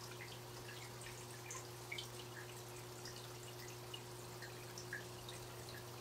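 Faint aquarium water trickling, with scattered small drips and bubble pops over a steady low hum.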